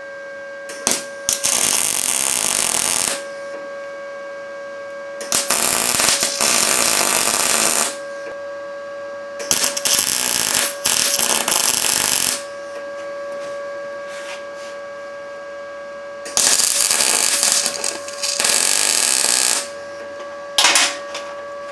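ArcCaptain MIG 200 welder running an arc at about 18 volts: five bursts of MIG welding crackle, each one to three seconds long, with short pauses between them. A steady high whine runs underneath.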